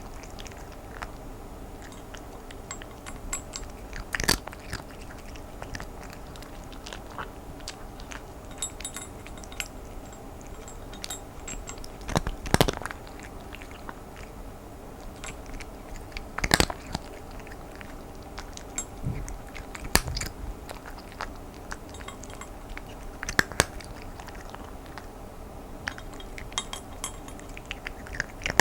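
A cat crunching dry kibble in a dense run of small crisp clicks, with louder sharp crunches every few seconds.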